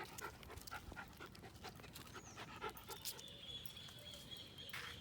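Miniature schnauzer panting: faint, quick breaths at a few a second.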